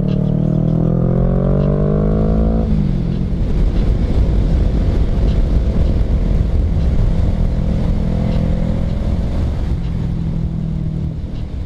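Kawasaki Ninja 650 parallel-twin with an aftermarket Yoshimura Alpha exhaust accelerating, its pitch rising steadily for about two and a half seconds, then dropping suddenly at an upshift. Then wind rush on the microphone at speed covers most of the sound, with the engine running steadily underneath.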